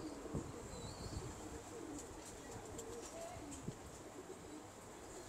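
Faint cooing of domestic pigeons, with a few soft clicks.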